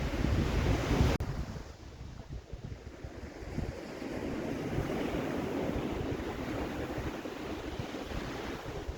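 Sea waves washing on the shore, with wind buffeting the microphone heavily for the first second or so before it drops away abruptly.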